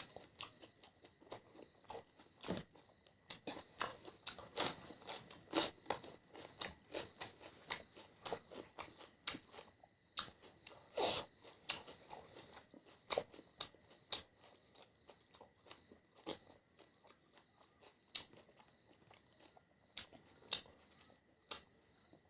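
A person chewing and crunching food close to the microphone, with many quick, irregular crunches and bites.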